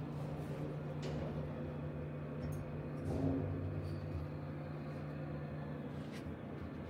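Schindler elevator car running upward: a steady low hum and rumble from the drive and the car in the shaft, with a few faint clicks.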